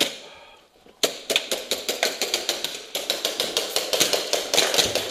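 Footsteps running up wooden stairs, a quick even run of knocks about six a second, starting about a second in.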